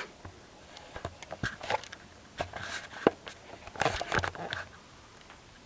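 Irregular rustling, clicks and knocks of camping gear being handled, in a loose flurry that dies away about a second before the end.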